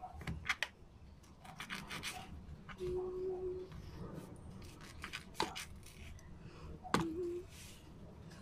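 Kitchen knife cutting a longaniza sausage on a cutting board: sharp clicks of the blade meeting the board, with scraping and rubbing as the sausage is sliced and its casing is pulled off.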